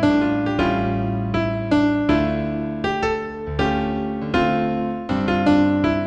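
Solo piano playing a new-age piece in C major: chords with a melody above them, each note struck and left to ring before the next.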